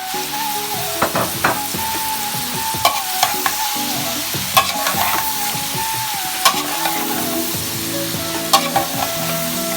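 Food sizzling in hot oil as it is stir-fried in a pan, with a cooking utensil knocking against the pan now and then, about seven times.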